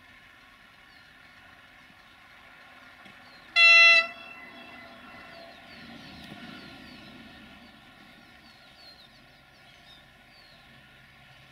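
Siemens Desiro VT642 diesel multiple unit giving one short, loud horn toot about three and a half seconds in, over the steady hum of its diesel engines as it rolls slowly in and comes to a stop.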